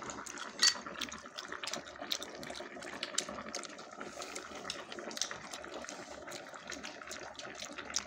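Fish-bladder hotpot broth boiling in a pot, bubbling with irregular pops and crackles. One sharp pop comes about two-thirds of a second in.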